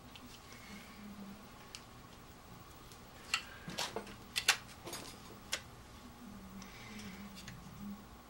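A few light clicks and taps, about five or six of them spread over a couple of seconds around the middle, as the Philips CD drive unit is handled and its connectors are plugged back into the CD player.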